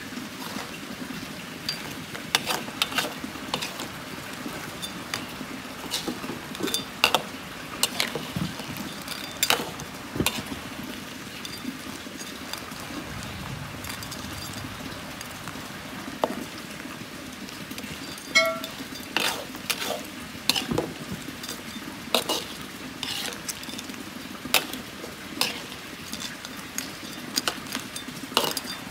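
A spatula stirring crabs in a wok of simmering coconut-milk gravy, with irregular sharp knocks and scrapes of the spatula against the wok and the crab shells over a steady low bubbling.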